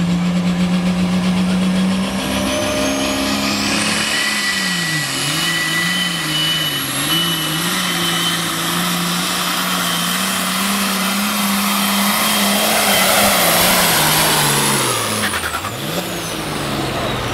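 Allis-Chalmers Pro Farm pulling tractor's diesel engine under full load, hauling the weight sled, its engine speed wavering up and down as it pulls. A high turbo whine climbs a few seconds in and holds. Near the end the whine falls away and the engine drops off as the pull ends.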